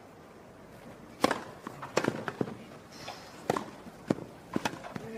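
Tennis rally on a grass court: rackets strike the ball, each hit a sharp pop. The first and loudest is the serve about a second in, and the rest come roughly every half second to second and a half, with lighter ticks from the players' footsteps between them.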